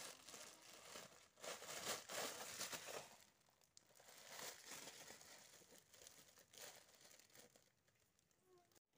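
Thin clear plastic bottle crinkling as a cat bites and paws at it, in irregular bursts that fade near the end.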